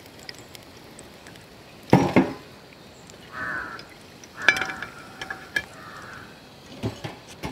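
A slotted steel ladle knocking and clinking against the rim of a large metal frying pot a few times while fried chilli bajji are lifted out of the oil.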